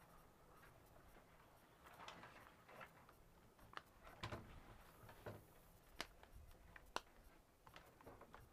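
Near silence with a handful of faint, short clicks and knocks, the sharpest two about six and seven seconds in.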